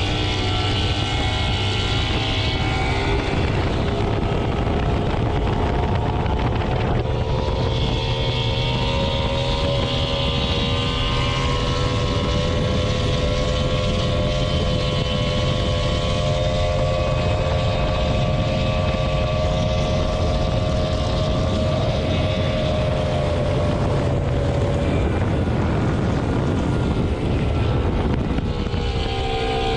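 Mercury outboard motor running at high revs on a fast-moving boat, its pitch climbing over the first several seconds as the boat accelerates, then holding steady, with water spray rushing past the hull.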